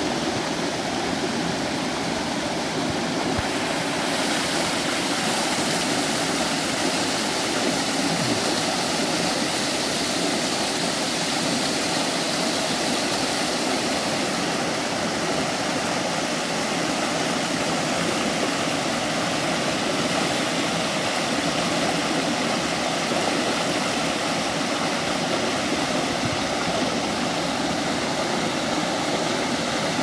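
Small cascade on a rocky creek: water pouring and splashing over boulders into a pool, a steady, unbroken rush.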